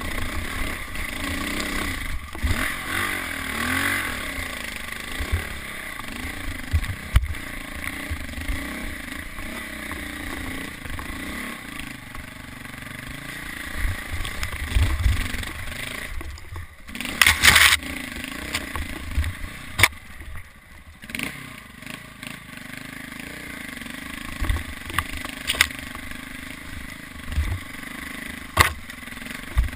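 KTM 400 dirt bike engine running through changing revs as it climbs a rocky singletrack trail, its pitch wavering up and down. Knocks and clatter from the bike over rocks come through, with a loud burst of noise about halfway through.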